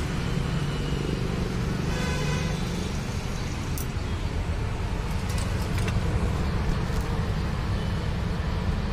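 Steady low rumble of motor vehicles, with a few faint clicks a few seconds in.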